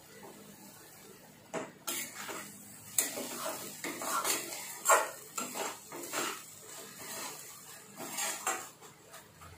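Spatula stirring chopped vegetables in a kadai: a string of irregular scrapes and knocks against the pan that starts about a second and a half in and eases off near the end.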